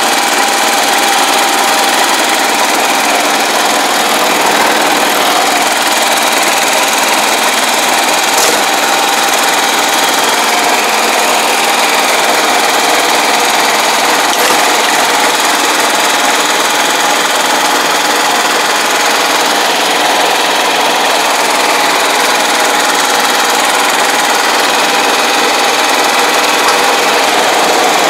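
Small engine of a crawler-tracked pest-control sprayer running steadily at close range as the machine travels on its tracks.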